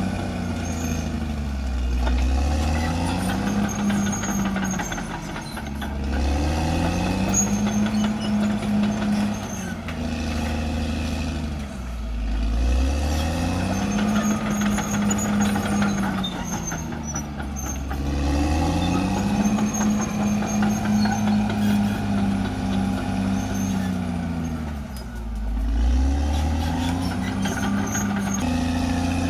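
Caterpillar D6R XL bulldozer's diesel engine working, its note sagging and climbing back about every six seconds as it takes and sheds load. Faint high squeaks ride over it.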